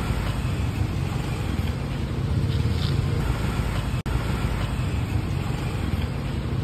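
Motor scooter engine idling with a steady low rumble, amid light street traffic; the sound breaks off for an instant about four seconds in.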